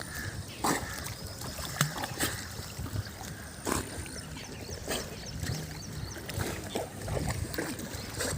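Water splashing and sloshing irregularly, with scattered sharp clicks and a low rumble.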